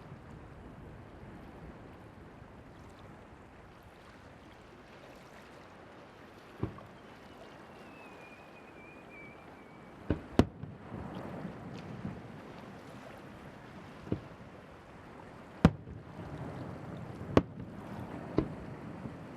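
Fireworks over the sea: a thin whistle that falls slightly in pitch, then a series of sharp bangs, about eight in all, each trailed by a brief crackle and rumble. A steady hiss of wind or surf runs underneath.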